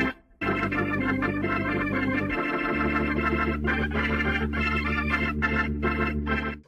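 Organ music playing held chords, with a short break just after the start and a chord change about two and a half seconds in.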